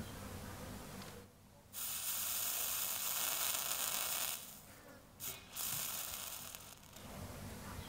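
Soldering flux sizzling under a hot soldering iron tip as small brass lure parts are soldered together. There are two hissing spells, one of about two and a half seconds starting about two seconds in, and a shorter one a second later.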